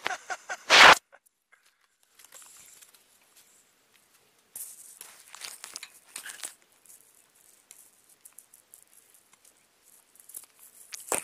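Handling noise from vervet monkeys pawing and mouthing a Samsung Gear 360 camera close up: scratching and rubbing on the camera body, with a loud knock about a second in and patchy rustling after.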